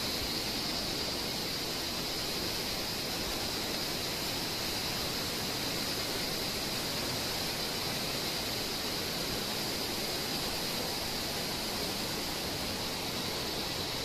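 Steady outdoor background noise: an even hiss with a constant high-pitched band, unchanging in level.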